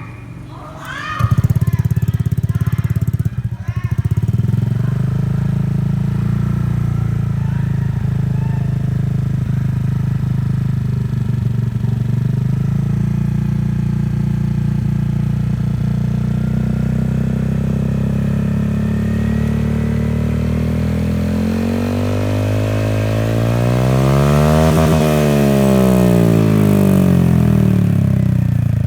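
Honda Vario 150 scooter's single-cylinder engine running through a Balera short Kevlar aftermarket exhaust. It comes in loudly about a second in and runs steadily. A few seconds before the end it is revved, its pitch climbing and falling back.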